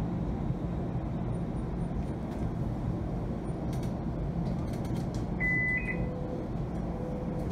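Steady low rumble of a Bombardier Flexity Freedom light rail vehicle running along its track, heard from inside the passenger cabin. A short electronic beep sounds once, about five and a half seconds in.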